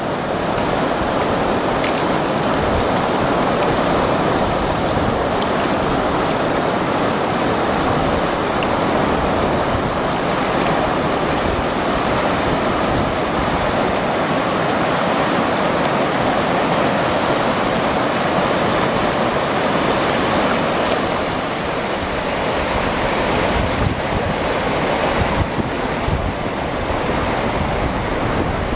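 Whitewater creek rapids rushing steadily, with wind buffeting the microphone.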